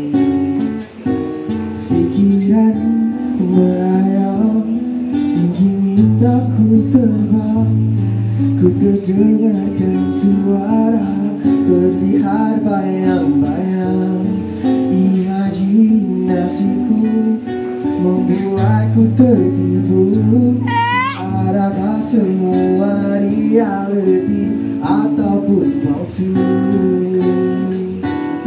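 Acoustic guitar strummed and picked in a song, with a man singing along into a microphone.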